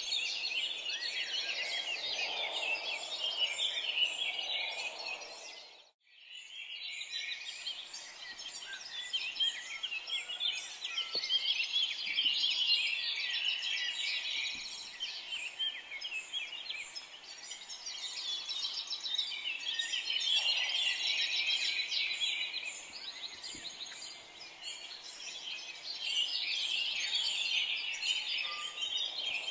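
Beef and masala gravy sizzling in a frying pan on the stove, a dense steady crackle that cuts out briefly about six seconds in, with a few faint knocks.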